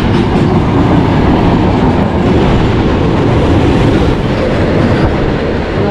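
Steady, loud rumble and rattle of trains on the track, heard from a passenger coach's open doorway while a freight train of flatcars loaded with lorries runs close alongside.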